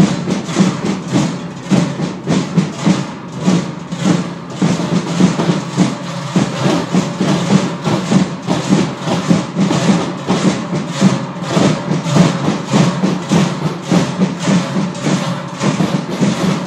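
Many large Trychle cowbells clanging together in a steady rhythm, with a dense metallic ring beneath the strokes.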